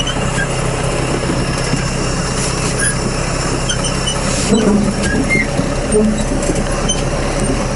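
Tractor engine running steadily as it tows a potato planter across a field, together with the planter's running gear. A few sharp knocks come through.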